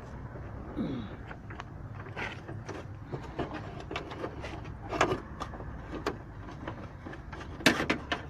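Irregular clicks and knocks of a car door lock and its parts being handled and worked, over a steady low hum. The loudest cluster of clicks comes near the end.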